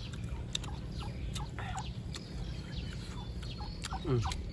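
Backyard poultry calling: scattered short clucks and chirps, with one falling call near the end.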